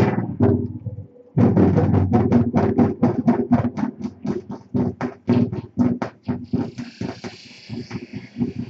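Electronic music played live on the Sonocyb exo-hand controllers, a gestural synthesizer. A sharp hit and a short pause give way to a fast stutter of low synth pulses, about five a second, with a hissing noise layer coming in past the halfway point.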